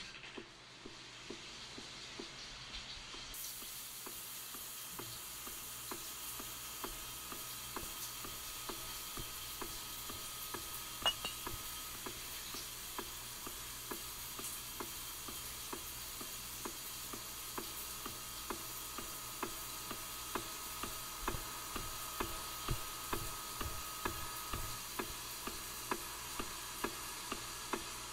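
Horror-film sound design: a steady sizzling hiss with a regular ticking pulse, a little over one tick a second, that grows louder through the second half.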